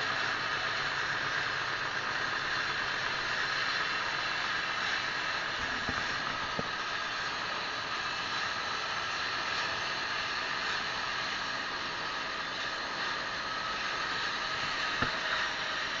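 Sawmill saw ripping a teak log lengthwise, a steady hissing machine noise, with a few faint knocks about six and fifteen seconds in.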